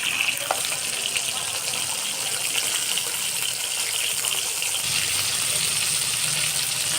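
Pieces of pona (carp) fish sizzling and crackling steadily as they shallow-fry in hot oil in a pan.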